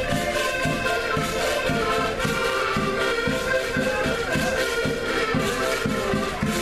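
Several concertinas (button accordions) playing a folk tune together in sustained chords, with a bass drum keeping a steady beat.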